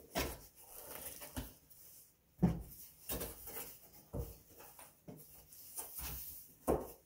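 Cardboard shipping carton being handled: flaps folded open and the box inside pushed and scraped, giving irregular rustles, scrapes and bumps, the sharpest bump about two and a half seconds in.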